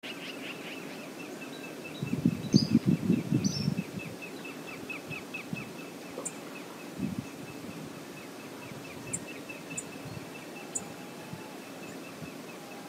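Brown bear wading through a river, its splashing and sloshing heaviest about two to four seconds in and again briefly a few seconds later, over a steady river hiss. A small bird chirps rapidly at one pitch, about four notes a second.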